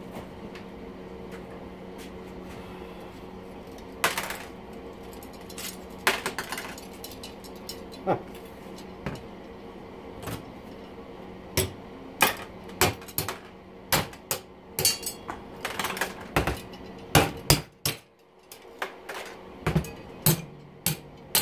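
Hammer striking a steel-spoked aluminium bicycle rim to knock out rusted, seized spokes: sharp metallic taps with brief ringing, a few spaced out at first, then coming quickly and irregularly in the second half.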